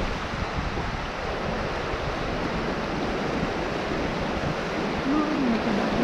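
Steady rush of a fast-flowing river around an inflatable raft, with wind buffeting the microphone near the start; a faint voice comes in near the end.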